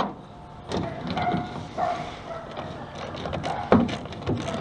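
Irregular tool clicks and knocks as the screws holding a 2003 Ford F-150's tail light housing are backed out, with sharp clacks near the start and about three-quarters of the way through.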